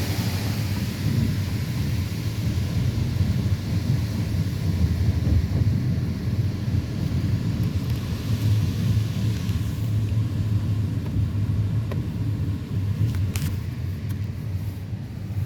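Steady low rumble of a car driving: road and engine noise, with one short click near the end.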